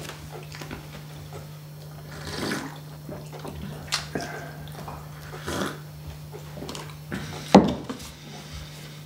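Breakfast-table sounds: scattered clinks and knocks of cutlery, plates and mugs, with one louder knock on the wooden table near the end, over a steady low hum.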